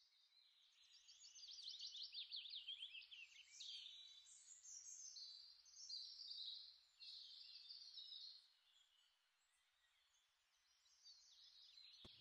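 Faint birdsong: small birds chirping and trilling in quick, sweeping high notes. It stops about eight and a half seconds in.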